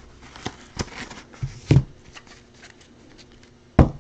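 Trading cards in hard plastic holders clicking and tapping against each other and the box as they are picked up and sorted by hand. There are several separate taps, the loudest about a second and a half in and a sharp knock just before the end.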